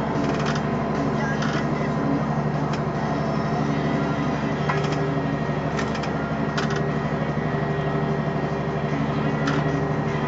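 Renault Ares 640 tractor's diesel engine running steadily under load as it drives over a silage heap to pack it, heard from the cab, with a few sharp clicks and rattles.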